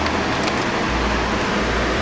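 Steady road and running noise of a car being driven, an even rush with no distinct engine note.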